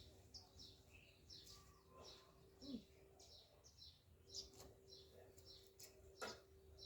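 Faint chirping of small birds, short downward-sweeping calls a few times a second, over a low steady hum, with one sharp click about six seconds in.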